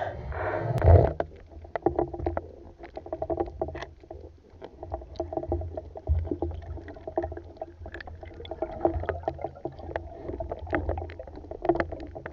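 Underwater sound picked up through an action camera's waterproof housing while a diver swims: a muffled low rush of water with an irregular crackle of short sharp clicks. A single louder sharp knock comes about a second in.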